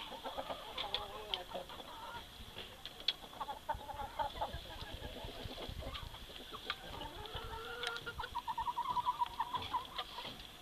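A flock of domestic hens and roosters clucking and calling, with a quick run of rapid clucks from about eight and a half seconds in.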